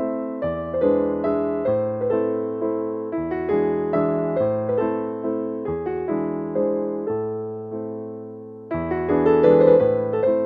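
Background piano music: chords with a melody over them, a new phrase starting with a louder chord near the end.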